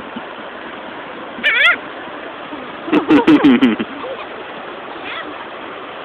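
Gulls calling over a steady hiss of surf and wind: a short high call about a second and a half in, then a louder run of calls around three seconds in.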